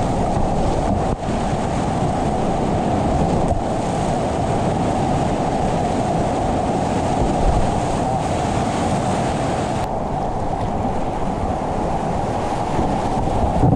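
Rushing whitewater of Icicle Creek's class IV boulder-garden rapids at a medium flow of about 1280 cfs: a loud, steady roar that dips briefly about a second in.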